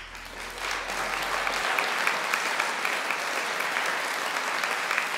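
Audience applause breaking out as the choir's final chord dies away, building within the first second into steady, dense clapping.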